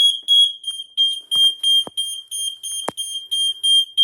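Smoke alarm sounding under test, a piercing high-pitched beep repeating rapidly, about four times a second. A few faint clicks sound under it.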